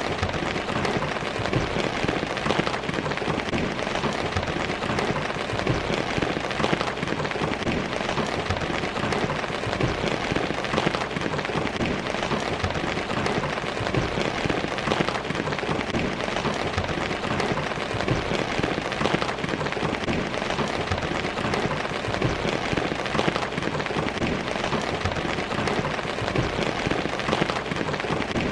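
Steady rain falling and pattering on surfaces, a dense even hiss full of small drop ticks, with no letup.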